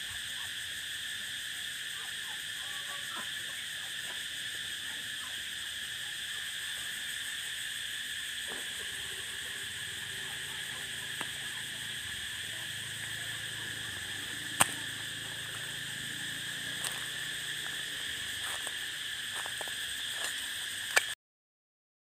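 A steady chorus of many calling animals, a high, even drone, with a few faint clicks; it cuts off suddenly near the end.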